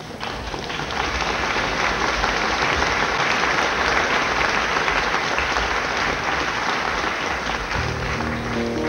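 Audience applause from an old concert recording, dull with no high treble, starting abruptly. Near the end, piano notes begin to sound under the clapping.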